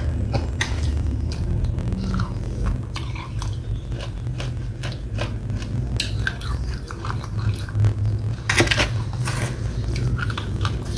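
Close-up mouth sounds of someone chewing a wet red clay paste: irregular sticky, smacking clicks, thickest about eight and a half seconds in. A metal spoon scrapes in a plastic tub of the paste now and then, over a steady low hum.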